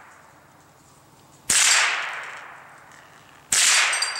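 Two shots from a Marlin Model 60 .22 LR semi-automatic rifle, about two seconds apart, each with a sharp crack that fades away over about a second. A faint metallic ring follows the second shot as the steel spinner target is hit.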